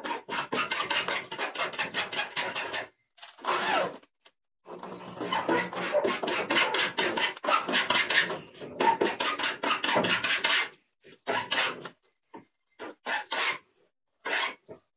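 Corded electric drill driving small screws through metal angle brackets into a cabinet's side panel, running in bursts: about three seconds at first, a short burst, a long run of some six seconds, then short bursts near the end.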